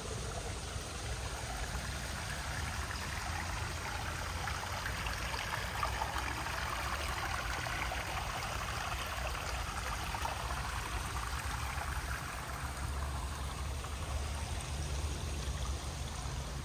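Running water, a steady rushing that grows louder in the middle and fades again, over a steady low rumble.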